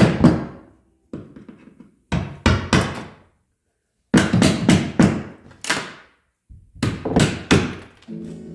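Sharp hammer blows on a chisel, splitting old oak ribs out of a wooden boat hull. The strikes come in quick groups of two to four, with short silent breaks between the groups.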